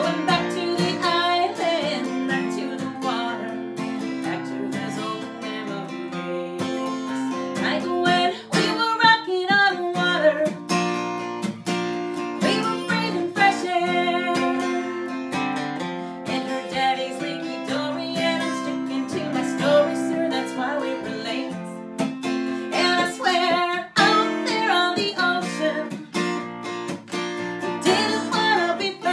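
A woman singing to her own strummed acoustic guitar, which is played with a capo.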